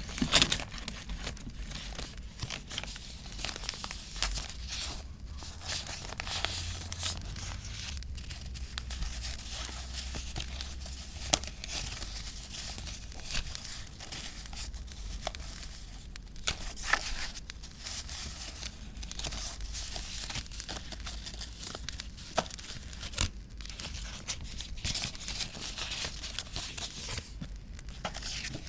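Paper being handled for journaling: tearing and crinkling, with many small sharp ticks and taps throughout.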